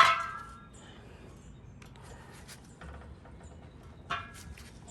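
Faint scattered clicks of small parts being handled, with one brief, sharper sound about four seconds in.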